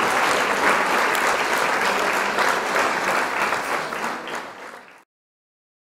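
Crowd applauding, a dense patter of many hands clapping that fades out and stops about five seconds in.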